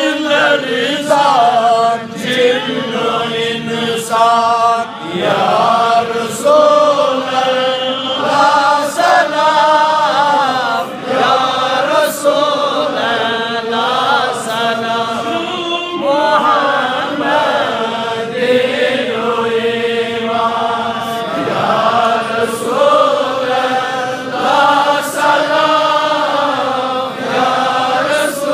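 A man chanting an Islamic devotional hymn through a microphone and loudspeakers, in long, drawn-out melodic phrases that rise and fall.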